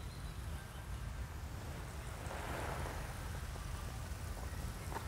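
Wind rumbling on the microphone outdoors, with a soft hiss that swells and fades about halfway through.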